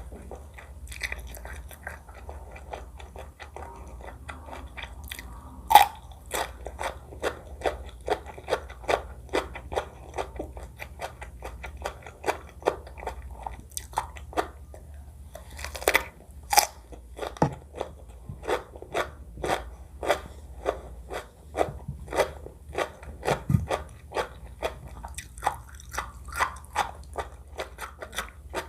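Close-miked mouth sounds of someone chewing and biting food, a steady series of sharp, crunchy clicks at about two a second, starting about six seconds in, with a few louder bites.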